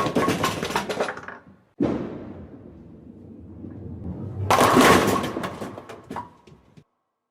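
Bowling sounds: the clatter of pins from one strike dies away, then a bowling ball lands on the lane with a thud about two seconds in and rolls with a low rumble that builds. About four and a half seconds in it crashes into the pins, which clatter for about two seconds and then cut off.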